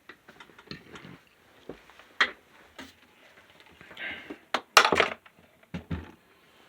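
Handling noise: scattered knocks, clicks and rustles of objects being moved by hand, with the loudest cluster of knocks about five seconds in.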